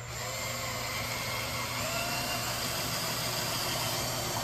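Ryobi cordless impact driver with a magnetic bit running steadily, driving a screw into a plywood wall panel. Its motor whine rises slightly in pitch as it runs.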